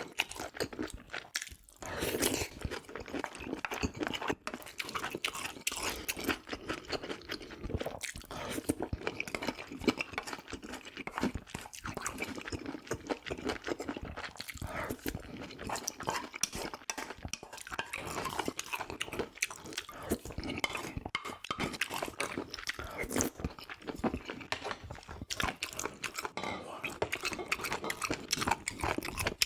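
Close-miked chewing of offal: wet, crackly mouth sounds with bites, plus occasional clinks of cutlery against dishes.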